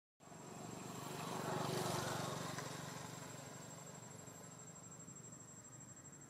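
A passing motor vehicle's engine, swelling to its loudest about two seconds in and then slowly fading away, over a steady high-pitched insect whine.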